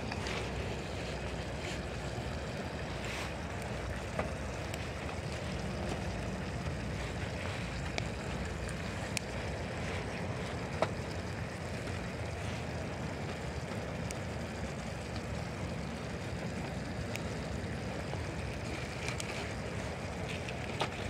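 Twigs and sticks burning in a small folding wood stove, giving a few sharp crackles, over a steady low rumble of wind on the microphone.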